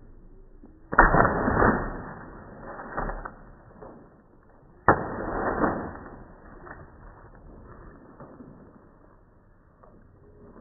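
Water balloon thrown down onto a concrete patio, smacking down twice about four seconds apart, each hit trailing off over about a second. The balloon does not burst.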